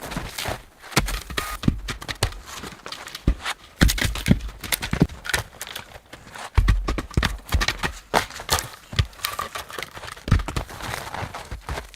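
Footsteps: a run of irregular crunches and knocks, with a few heavier thumps.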